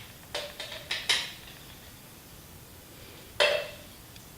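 Metal utensil clinking and knocking against a cooking pan: a quick run of light clinks in the first second, then one louder clink about three and a half seconds in.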